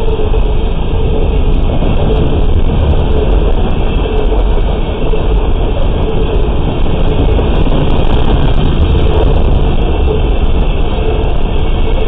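Freight train hopper cars rolling past close by: a loud, steady rumble of steel wheels on rail, with a rapid scatter of small clicks and clacks over the track.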